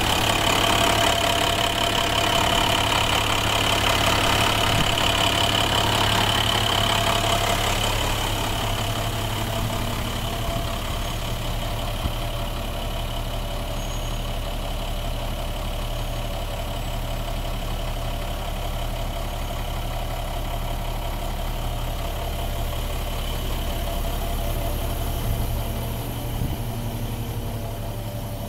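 2012 International 7400 garbage truck's engine idling steadily, louder with a high whine over it for the first eight seconds or so, then quieter.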